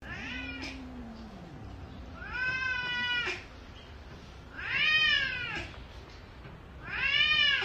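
Domestic cats meowing: four drawn-out meows about two seconds apart, each rising then falling in pitch. A lower call slides down beneath the first one.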